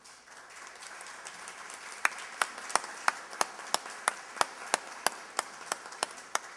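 Audience applauding. From about two seconds in, one person's claps close to the microphone stand out, at about three a second.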